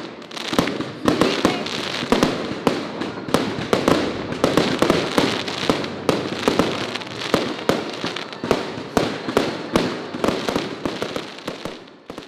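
Aerial fireworks bursting in quick succession: a dense run of bangs over continuous crackling, thinning out and fading near the end.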